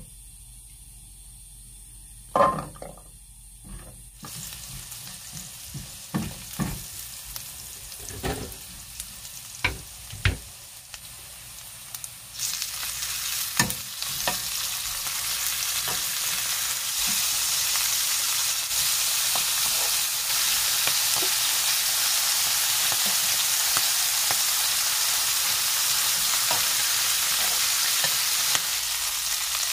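Garlic cloves and then abalone frying in butter in a nonstick pan, with a silicone spatula and tongs tapping against it. After a loud knock about two seconds in, a light sizzle starts, then jumps to a loud, steady sizzle about twelve seconds in.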